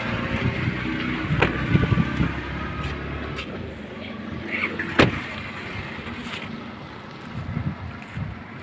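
A car door on a 1999 Toyota Camry is swung shut, landing with one sharp thud about five seconds in. Lighter clicks and handling noise come before it.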